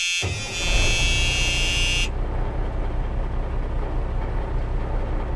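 A truck's horn sounds and cuts off about two seconds in, over a low engine rumble that keeps running steadily.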